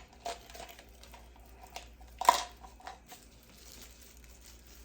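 Handling of small plastic bread-maker accessories and their packaging: a few light knocks and crinkles, the loudest about two seconds in.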